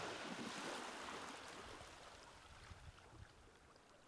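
Water rushing with a faint hiss over a low wind rumble, loudest in the first second and fading away over the next few seconds.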